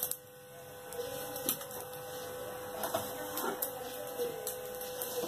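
A steady hum with a faint hiss behind it, broken by a few light clicks.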